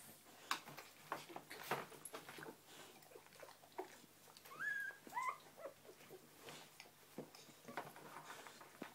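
Newborn Springer Spaniel puppies squeaking faintly, with two short rising squeaks about halfway through, over soft scratching and rustling as they crawl about.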